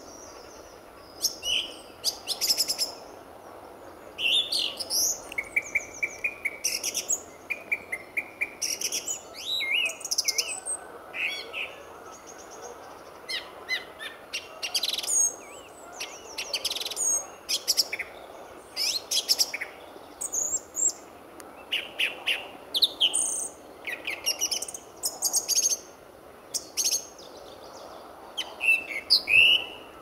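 Song thrush singing: a run of short, varied phrases of clear whistled notes and sharper clicking notes, each phrase separated by a brief pause.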